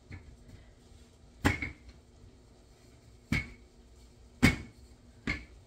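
Wooden rolling pin knocking on a cutting board while pastry dough is rolled out thin: four sharp knocks at uneven intervals, a second or two apart.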